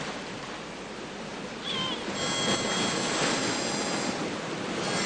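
A steady rushing noise, like surf or wind, with a faint short chirp about two seconds in. A high, steady ringing tone of several layered pitches follows for about two seconds and comes back near the end.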